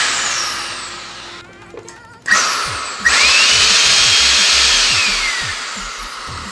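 Bare 800-watt vacuum cleaner motor with its blower fan, out of its housing, switched on in short bursts. It is winding down at first, starts again briefly about two seconds in, then runs up to speed once more a second later with a high whine that falls away as it coasts down near the end.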